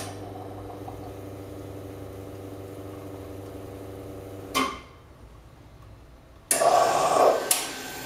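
Carimali Gusto automatic coffee machine humming steadily as its pump pushes espresso into the glass. About four and a half seconds in, a click is heard and the hum stops. Two seconds later a loud steam hiss starts as the machine begins dispensing hot, frothed milk.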